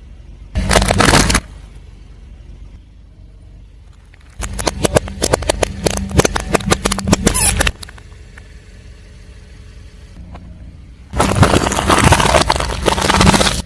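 Car tyre rolling over and crushing crunchy objects: three bursts of cracking and crunching, the middle one a long run of rapid cracks. A car engine runs low between the bursts.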